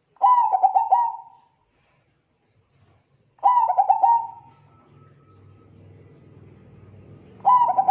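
Zebra dove (perkutut) cooing: three bursts of rapid staccato coo notes, each about a second long and a few seconds apart. A faint low hum rises in the background from about halfway.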